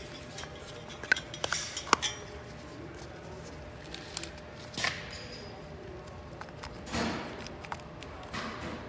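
Gloved hands working a motorcycle's flat-slide carburetor into place: metal parts clinking, with sharp clicks about one and two seconds in and several brief rustles and scrapes later on.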